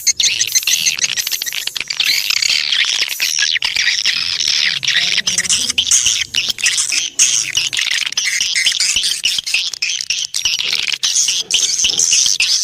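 Swiftlet lure call: many overlapping edible-nest swiftlet chirps and twitters, rapid and unbroken.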